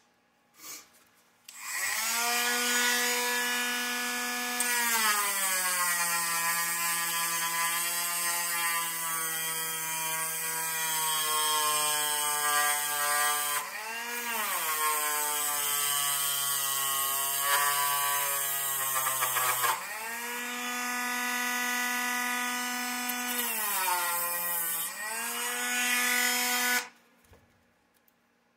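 Dremel rotary tool running at high speed, grinding into the plastic rear gear case of an RC buggy. The whine drops in pitch each time the bit bites into the part and climbs back when it eases off, then stops near the end.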